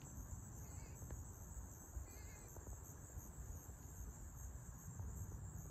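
Insects chirring in a steady, high-pitched chorus over a low rumble, with two faint short chirps about one and two seconds in.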